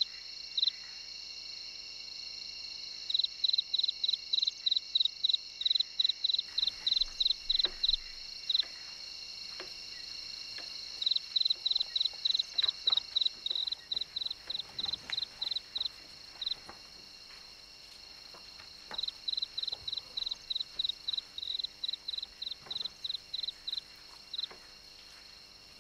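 Crickets chirping: runs of quick, evenly spaced high chirps, about four a second, that start and pause every few seconds over a steady high insect trill.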